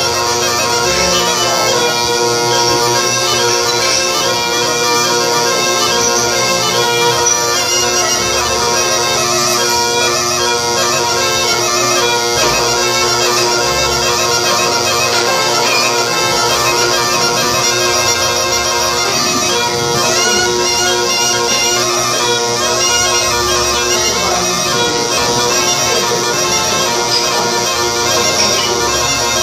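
Launeddas, the Sardinian triple cane reed-pipe, in the punt'e organu tuning, played solo with circular breathing. A steady drone sounds under a dance melody on the melody pipes, without a break for breath.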